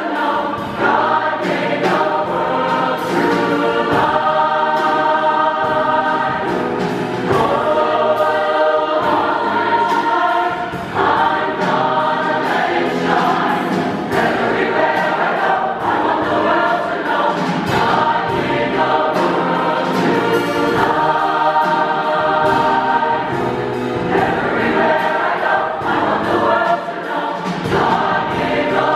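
Large mixed choir singing together, holding chords that change every second or two.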